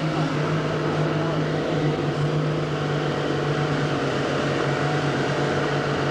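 Tour boat's engine running steadily under way, a constant drone that holds its pitch throughout.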